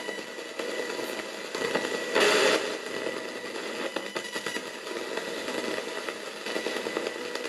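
NanocomS Coffin Edition spirit box sweeping rapidly through radio stations: continuous choppy, crackling static with a thin steady whine running through it. A louder burst comes about two seconds in.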